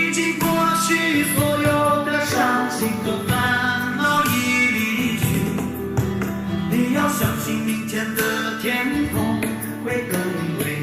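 Song music: a gliding melody line over a sustained, steady accompaniment.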